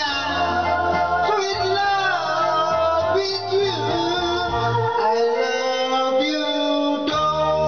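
A man singing karaoke into a microphone over recorded backing music.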